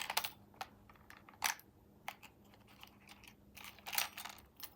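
Irregular light clicks and taps of small hand tools from a precision screwdriver kit being picked up and set down on a hard surface, with a quick cluster of clicks late on.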